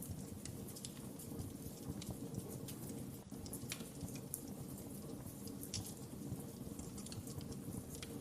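Wood fire crackling in a fireplace: irregular small pops and snaps over a low, steady rumble of the flames.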